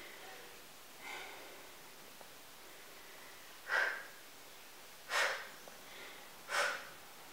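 A woman breathing hard from the effort of repeated leg kicks: three sharp out-breaths about a second and a half apart, after a faint one about a second in.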